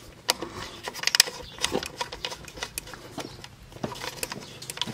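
A round multi-pin cable connector being pushed onto and twisted into a socket on a metal control box: a run of irregular clicks, knocks and rattles, sharpest about a second in.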